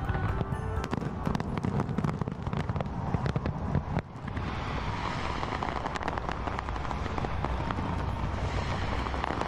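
Aerial fireworks going off: a rapid, irregular run of bangs and crackles over a low rumble. The sound drops out briefly about four seconds in and comes back as denser, steadier crackling.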